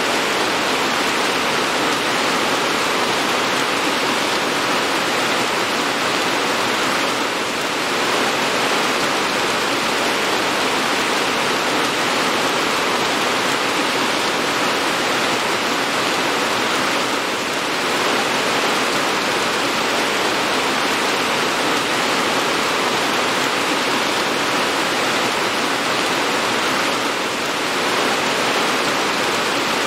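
Heavy, steady rain: an even hiss with no separate drops heard, dipping slightly in level about every ten seconds.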